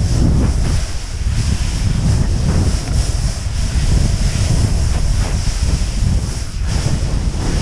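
Wind rushing over the microphone of a helmet camera on a snowboarder riding downhill, a loud steady rumble, with the snowboard sliding over the snow.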